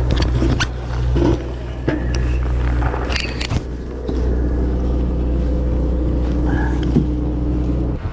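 Sportfishing boat's engine idling at the dock with a steady low hum, while clothing rubs and knocks against the microphone a few times.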